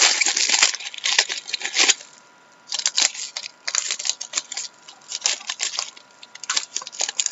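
Plastic trading-card pack wrapping crinkling and crackling as it is torn open and handled, in quick irregular bursts, with a brief quiet pause a little after two seconds in.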